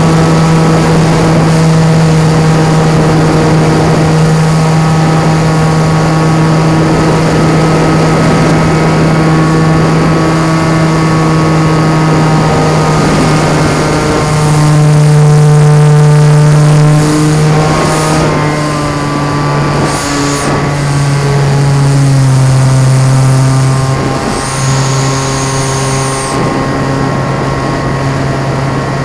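RC airplane's motor and propeller heard from the onboard camera in flight: a steady pitched drone that shifts with throttle. It goes higher and louder about halfway through, then settles lower in pitch for the last third.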